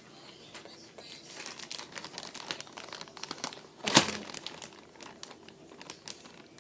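Slime being squeezed and worked by hand, giving dense irregular crinkling and crackling clicks, with one louder snap about four seconds in.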